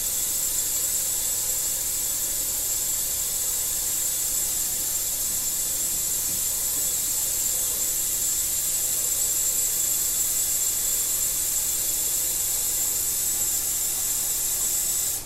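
Water running in a steady stream into the Instant Pot's inner pot over the soup vegetables and spices to cover them, an even hiss that cuts off abruptly.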